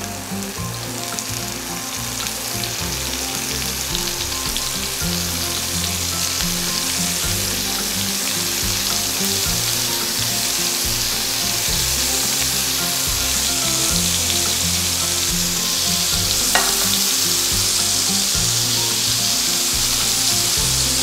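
Spice-marinated paneer cubes sizzling as they fry in shallow oil in a nonstick pan. The sizzle grows a little louder as more cubes go into the oil.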